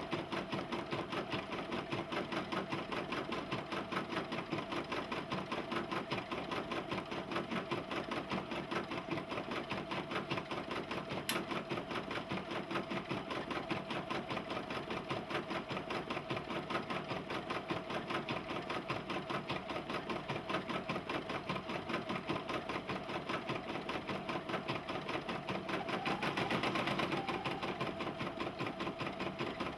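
Embroidery machine stitching out a design, a fast, steady rattle of needle strokes. A single sharp click comes about eleven seconds in, and the machine briefly runs louder near the end.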